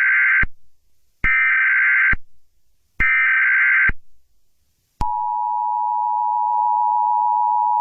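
Emergency Alert System tones: three short bursts of SAME header data about a second and a half apart, the first already sounding, then about five seconds in the steady two-tone EAS attention signal begins and holds.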